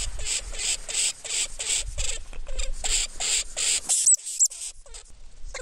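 Lemming calling: a rapid series of sharp, squeaky calls, about three or four a second. About four seconds in come two thin, high whistles, and then the calls turn sparser and quieter.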